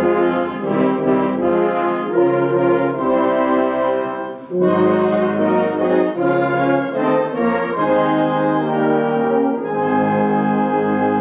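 Brass band playing slow music in held chords, with a short breath between phrases about four and a half seconds in.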